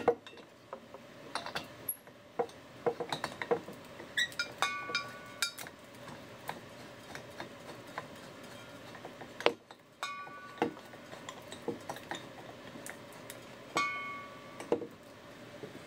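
Metal tools and objects being handled and set down on a workbench: scattered clinks and knocks, with three ringing metallic clanks about five, ten and fourteen seconds in.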